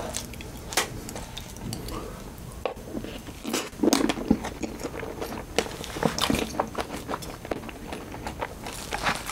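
Close-miked chewing and mouth sounds of a person eating soft, milk-soaked strawberry cheesecake: a run of wet smacks and clicks, with a wooden spoon scooping cake from a plastic tub.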